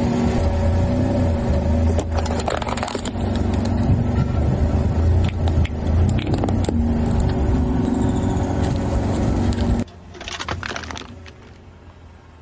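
Car engine running steadily, with scattered sharp cracks and clicks over it. The engine sound cuts off abruptly near the end, leaving quieter clicking.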